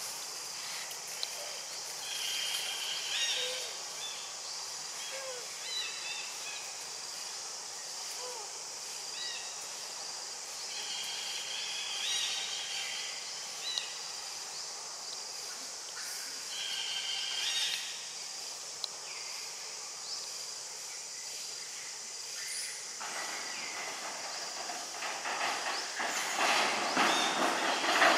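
Outdoor ambience: a steady high hiss, with short chirps every few seconds. A louder rushing noise swells over the last five seconds.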